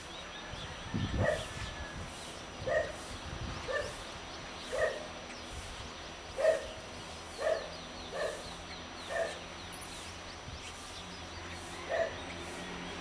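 A dog barking at a distance: about nine single barks spaced roughly a second apart, with a longer pause before the last one.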